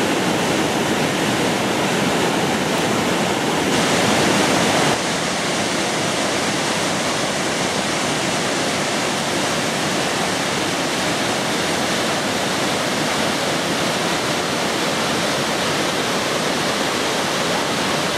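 Whitewater river rapids rushing steadily below. The sound steps down slightly about five seconds in.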